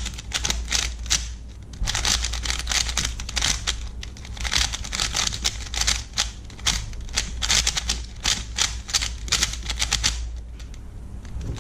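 A brand-new Rubik's/GAN Speed Cube being turned quickly by hand for its first turns out of the box: rapid runs of plastic clicking and clacking from the turning layers, with short pauses about two, four and ten seconds in.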